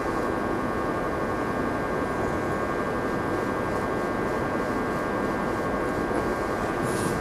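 Steady background noise with a band of faint high steady tones and no speech, with a brief faint rustle near the end.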